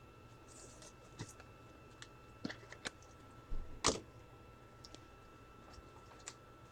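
A few scattered light clicks and rustles of trading cards and packs being handled, the loudest rustle about four seconds in, over a faint steady electronic hum.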